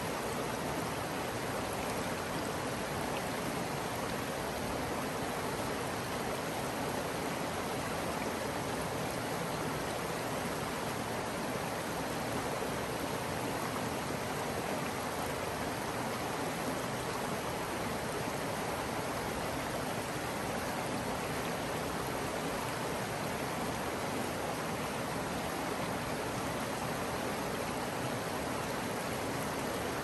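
Shallow creek water flowing, a steady, even sound that holds constant throughout.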